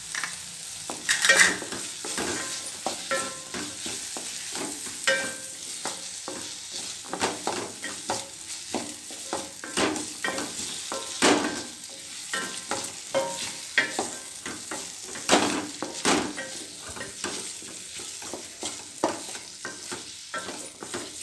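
Spatula scraping and knocking against a stainless steel kadai, stirring garlic cloves into onion and tomato frying in oil, with a steady sizzle underneath. The scrapes come irregularly, with a loud knock about a second in.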